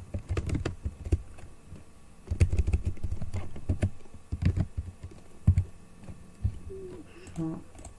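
Computer keyboard being typed on: scattered key clicks, with a quick run of keystrokes about two and a half seconds in that lasts over a second. The keyboard is not registering the keys properly; the typist says right afterwards that his keyboard has "gone".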